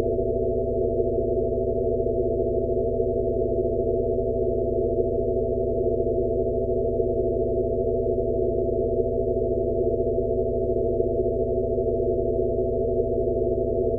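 Synthesized sound-therapy frequency track: a steady, low-pitched drone of several held tones over a soft rushing noise, with a faint slow pulse a little under once a second.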